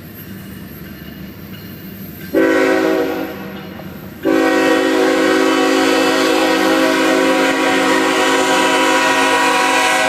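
Canadian National freight locomotive's air horn sounding several tones at once as the train passes close by: a first blast about two seconds in that fades away, then a long blast from about four seconds in that holds on. The low rumble of the approaching train lies under it.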